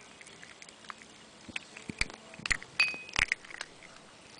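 Chihuahua crunching a hard dog cookie, with a run of crunches and clicks from about a second and a half in. A few clinks ring against the porcelain bowl.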